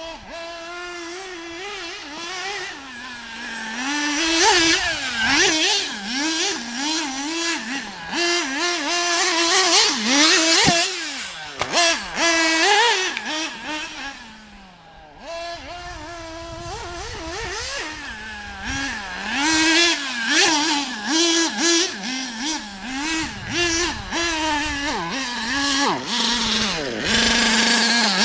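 Nitro RC car's Alpha Plus .21 two-stroke glow engine with a tuned pipe, revving up and down over and over, its pitch climbing and falling every second or so. It settles lower and quieter around the middle, then picks up again and holds a high, steady pitch near the end.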